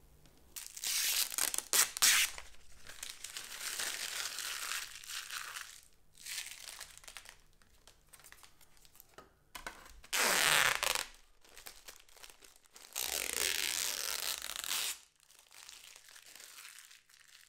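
Paper and a thin plastic sheet being handled: several bursts of rustling and crinkling, each lasting one to three seconds, with quieter gaps between them.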